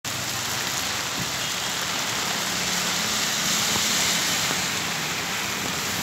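Heavy rain pouring onto a wet paved street, a dense steady hiss that grows a little louder about halfway through.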